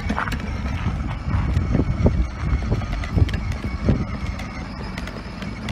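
Child's battery-powered ride-on toy motorcycle driving over asphalt: plastic wheels rumbling steadily, with irregular knocks as it rolls and turns.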